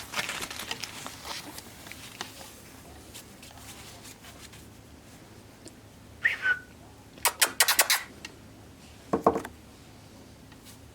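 Pembroke Welsh Corgi puppy giving a short, high whimper about six seconds in, followed by a quick series of sharp clicks and then a single knock.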